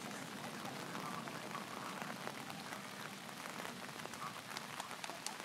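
Faint, even pattering with scattered sharp clicks, from the last firework sparks crackling out and debris falling.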